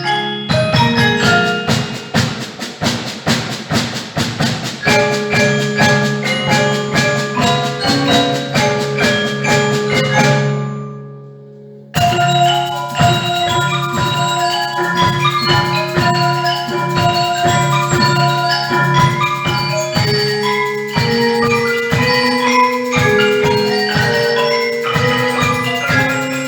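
Mallet percussion ensemble playing fast runs of struck notes in the manner of marimba and xylophone. The passage fades out about eleven seconds in, then a different passage starts abruptly.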